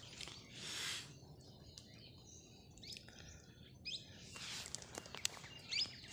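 Faint birds chirping, a few short high chirps about four seconds in and again near the end, with soft rustling in between.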